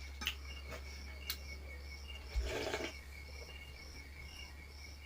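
Crickets chirping steadily in short, evenly repeating pulses, with a few faint clicks and a brief rustling noise about halfway through.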